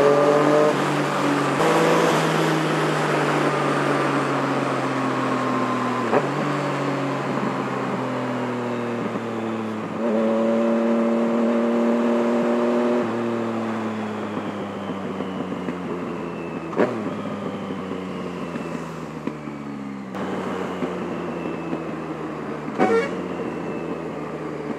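2016 Yamaha MT-09's 847 cc inline-three running through a carbon-fibre M4 decat exhaust while being ridden, heard from a helmet mic with wind noise. The engine pulls up in pitch at the start, winds down, pulls again about ten seconds in, then rolls off with its pitch falling. A few sharp cracks sound on the overrun.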